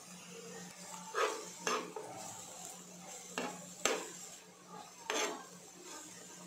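A spatula stirring and scraping chopped vegetables in a nonstick frying pan: about five short scrapes with a sharp knock about four seconds in, over a low steady hum.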